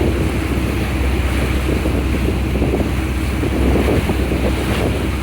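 Steady low rumble of a ferry under way, with rushing water and wind buffeting the microphone.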